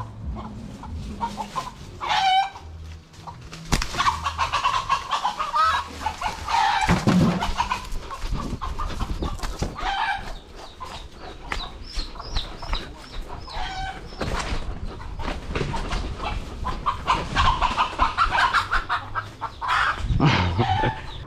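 Feral chickens clucking repeatedly, with a rooster crowing among them, the calls coming in bouts every few seconds amid many short sharp clicks.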